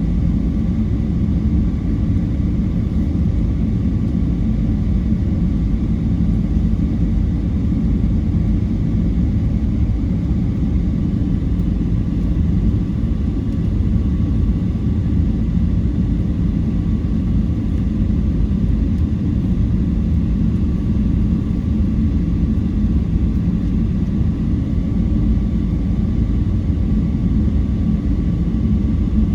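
Airplane engine noise: a steady low rumble with faint, thin whining tones above it, holding level without rising or falling.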